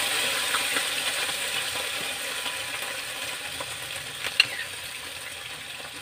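Canned sardines sizzling and crackling in hot oil in a frying pan, the hiss slowly dying down as the fish settles in. A single sharp click comes about four seconds in.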